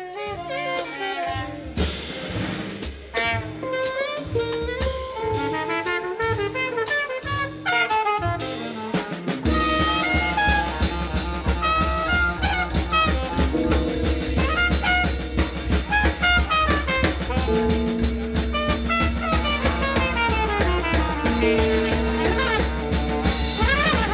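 Instrumental jazz with saxophone and drum kit. The band plays sparse, choppy figures at first, then comes in fuller with bass and drums about nine seconds in.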